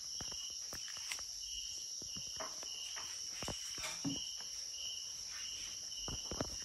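Crickets chirping: a steady high trill with a lower chirp repeating about twice a second. Faint scattered clicks and taps are heard over it.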